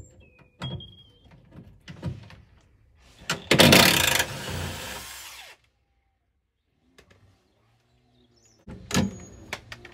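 Cordless impact driver with a T50 Torx bit hammering on a rusted rear-subframe bolt, its captive nut heated to free it: a loud burst of about a second, running on more lightly for about a second and a half before it stops. A second short burst comes near the end, with a few clicks and knocks of handling around them.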